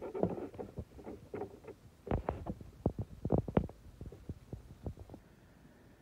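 Irregular soft thumps and knocks on the microphone of a hand-held phone, a couple of dozen in quick succession, loudest in the middle and stopping about a second before the end. No birdsong.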